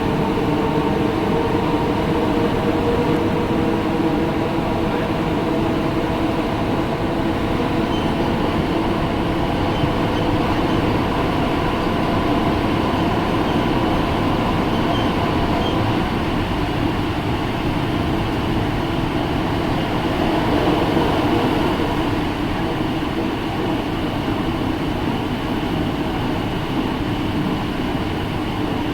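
Steady mechanical rumble and hiss with a few faint held tones, even in level throughout.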